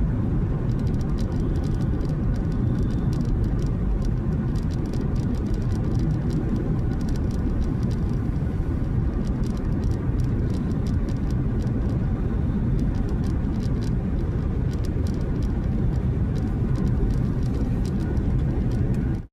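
Steady low rumble of tyres and engine inside a car cruising on the highway, with many small irregular ticks throughout.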